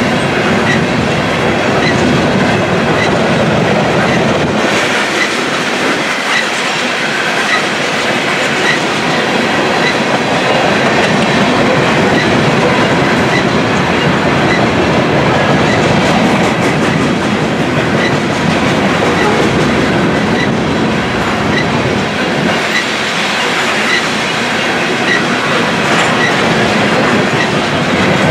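Freight train of covered hopper grain cars rolling past, wheels clattering steadily over the rails, with a grade-crossing bell dinging at an even pace.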